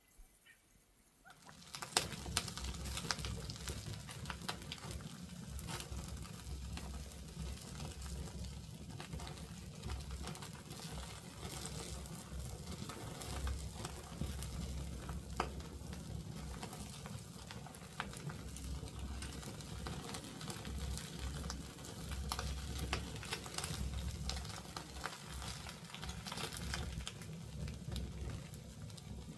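Wood fire crackling and popping in a fireplace, with a steady low rush underneath; it starts abruptly about a second and a half in.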